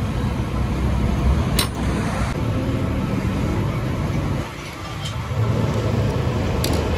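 Steady low rumble of road traffic, with two short sharp clicks, one about a second and a half in and one near the end.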